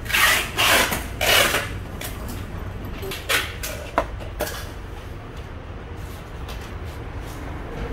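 Handling of a Daewoo gasoline chainsaw that is not yet running: a few sharp clicks and knocks from its body and controls about three to four and a half seconds in. These follow three short hissing bursts in the first second and a half.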